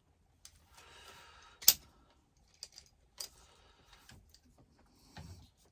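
A plastic wiring connector being worked apart by hand: light rustling and scattered clicks, with one sharp snap a little under two seconds in.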